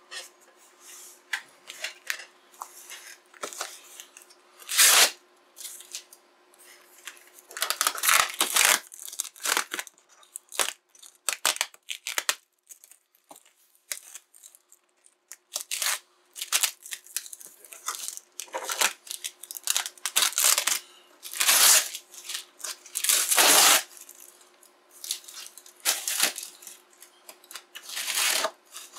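Packing tape being peeled and ripped off a cardboard shipping box: a series of loud rips, a second or less each, with quieter rustling of tape and cardboard between them. A faint steady hum runs underneath.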